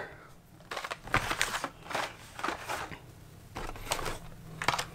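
Carded Hot Wheels cars in plastic blister packs being handled and pulled from a cardboard case: a series of short, irregular rustles and crinkles of plastic and card.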